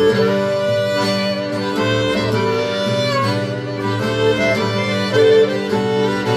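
A folk ensemble of violin, accordion, saxophone and guitar playing a slow Irish-style reel, with the violin carrying the melody over sustained accordion chords and strummed guitar.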